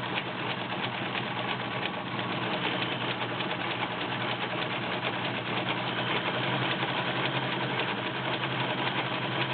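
Kenmore 1703 all-metal sewing machine running steadily and sewing a stretch stitch: a steady motor hum with rapid ticking from the needle mechanism. It stops at the end.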